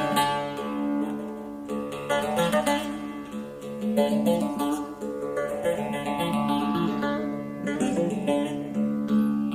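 Background music: a plucked string instrument playing slow, sustained melodic notes.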